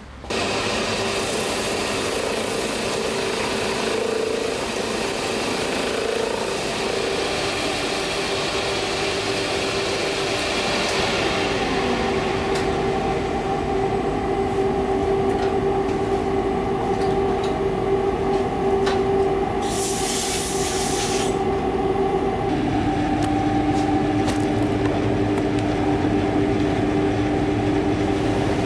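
Shoe repair finishing machine running, its motor and spinning sanding and buffing wheels making a loud, constant hum with a steady tone. A brief high hiss comes about two-thirds of the way through, and the tone drops slightly soon after.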